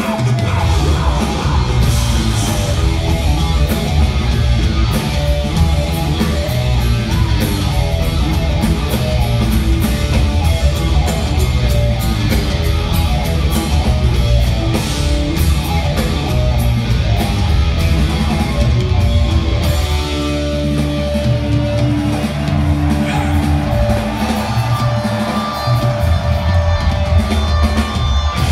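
Live hard-rock band playing loud: electric guitar, bass guitar and drum kit. About twenty seconds in, the full band thins out to held guitar and bass notes.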